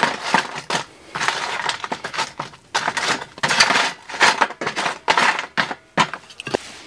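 Charcoal briquettes being broken up and raked across a black metal barbecue tray with a flat wooden stick: a run of irregular scraping, breaking strokes with light clinks of coal pieces.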